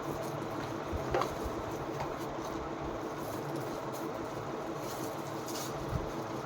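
Steady mechanical room hum, with a few faint clicks about a second in and again near the end.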